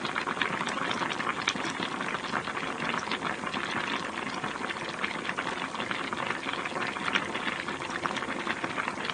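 Food sizzling and bubbling in a hot pan: a dense, steady crackle.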